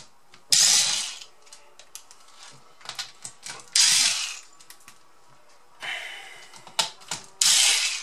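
Corded electric screwdriver running in short bursts as it backs screws out of a laptop's plastic bottom case. Three loud whirs of under a second each, a softer one, and small clicks between them.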